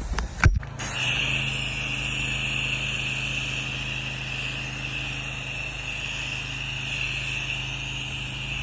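A pressure washer's engine running steadily, with the hiss of water spraying from the wand as soapy cleaning solution is sprayed onto a house's siding. A brief click comes near the start, before the spray begins about a second in.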